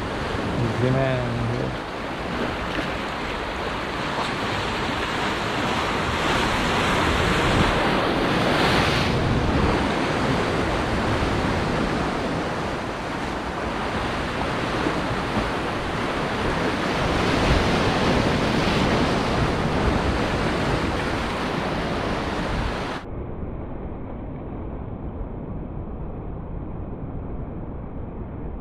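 Sea surf surging and breaking over rocks, with wind buffeting the microphone. About 23 seconds in the sound turns abruptly duller and quieter.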